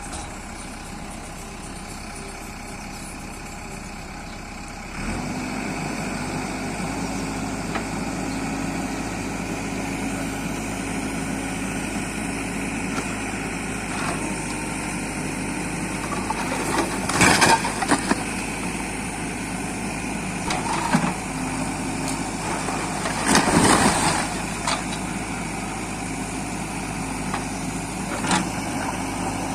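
Diesel engine of a JCB 3DX backhoe loader running steadily, stepping up to a higher, louder pitch about five seconds in as it works. Two loud, noisy surges of working noise come over it, one about halfway through and another a few seconds later.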